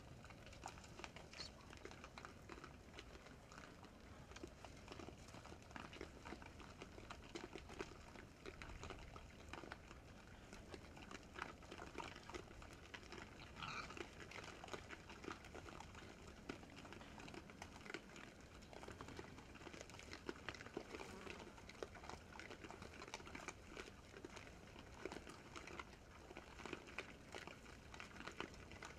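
Faint sounds of a herd of feral hogs feeding: scattered small crunches and clicks throughout, with one short high call about fourteen seconds in.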